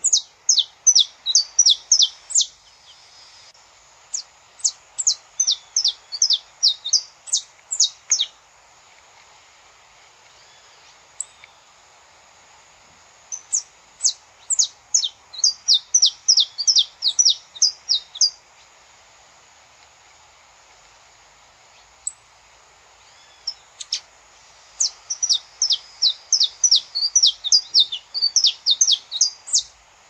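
Saffron finch (canário-da-terra) singing: four bursts of rapid, sharp chirping notes, each a few seconds long, with pauses between them. A faint steady background noise runs underneath.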